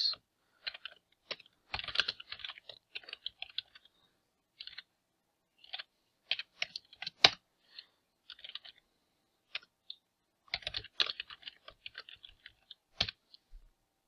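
Typing on a computer keyboard: runs of quick keystrokes broken by short pauses, with one sharper click a little past halfway.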